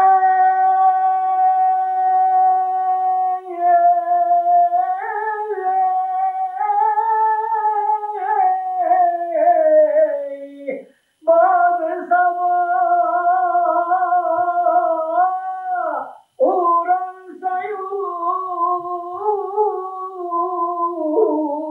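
A single unaccompanied voice singing long, drawn-out, ornamented phrases, pausing for breath about 11 and 16 seconds in.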